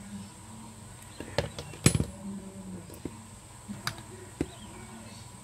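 Clicks and knocks of a propeller's metal hub and blade being handled and taken apart. The loudest knock comes about two seconds in, followed by a few lighter clicks.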